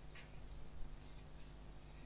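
Low steady electrical hum with a few faint, short clicks or handling noises over it.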